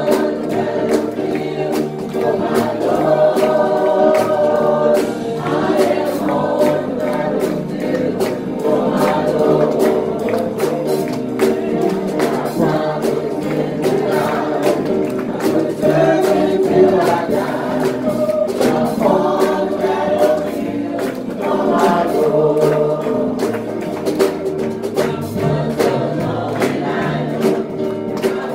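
Gospel choir singing a hymn, with sharp percussive hits keeping the beat.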